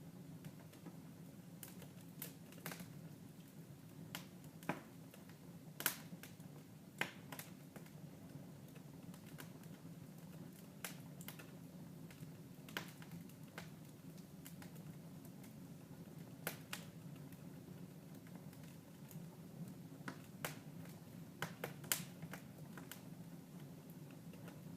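Wood fire in a fireplace crackling, with sharp irregular pops every second or so, a few louder than the rest, over a faint steady low hum.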